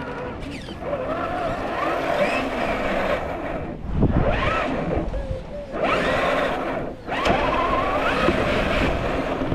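Electric motor of a Traxxas TRX4 1/10 scale RC crawler whining, its pitch rising and falling with throttle, cutting out briefly a few times.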